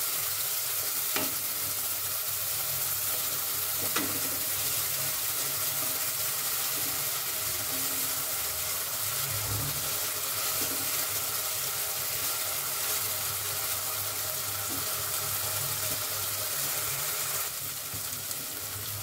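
Chopped onion sizzling steadily in hot oil in an aluminium kadai as it is stirred with a wooden spatula, with two light knocks about one and four seconds in. The sizzle eases a little near the end.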